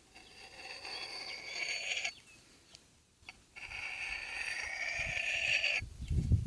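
A knife blade drawn along a Gossman sharpening steel in two long strokes, each a ringing metallic scrape lasting about two seconds, the second rising slightly in pitch. Low thumps come near the end.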